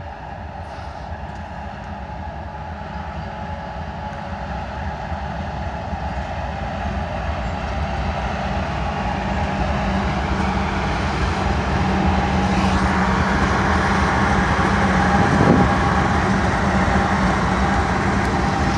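Lead GE diesel locomotives of a BNSF intermodal freight train (two ES44C4s and a Dash 9-44CW) approaching and passing, their engines running with a steady drone and rumble that grows louder as they come near.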